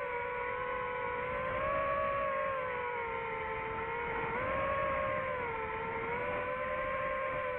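DJI FPV drone's motors and propellers whining, the pitch drifting up and down, with a quicker rise about four seconds in.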